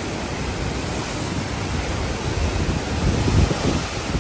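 Hurricane-force wind from a hurricane's eyewall blowing hard: a steady rush with a low rumble of wind buffeting the microphone, swelling in a gust about three seconds in.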